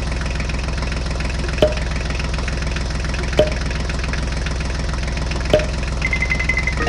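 Tractor engine idling with a steady low chugging, broken three times by a short sharp click about two seconds apart. A brief run of high beeps sounds near the end.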